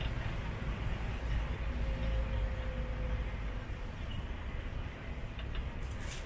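Steady engine and road rumble heard from inside a moving tuk-tuk, with a few light clicks or rattles near the end.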